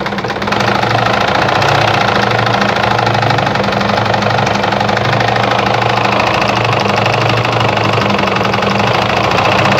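Juki DIA Rotary 7 sewing machine running steadily at speed, stitching a tight zigzag at a short stitch length: a steady motor hum with a fast needle clatter. It starts up about half a second in.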